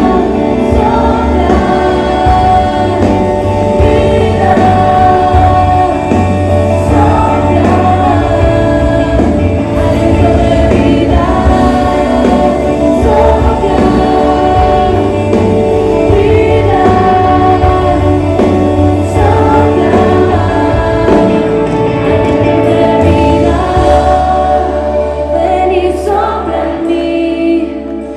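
Live Christian worship music: a band on stage with many voices singing together, loud and continuous. Near the end the bass drops away and it grows a little quieter.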